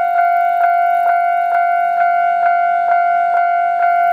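Japanese railway level-crossing warning bell ringing steadily with evenly repeated electronic dings, a little over two a second, sounding for an approaching train.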